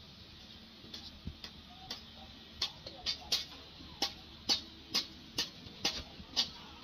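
A run of short, sharp, high-pitched ticks, about two a second, over faint steady background noise. They start faint and grow clearer partway through.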